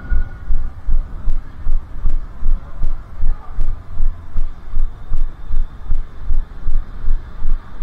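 A runner's footfalls jolting a body-worn camera: a steady low thud a little over twice a second, in time with the strides.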